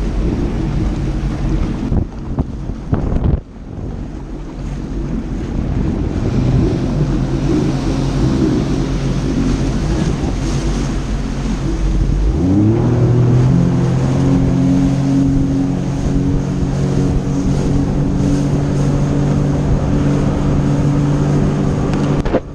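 Jet ski engine running under way, with wind buffeting the microphone and water rushing past the hull. About twelve seconds in, the engine revs up with a rising pitch, then runs steadily at the higher speed.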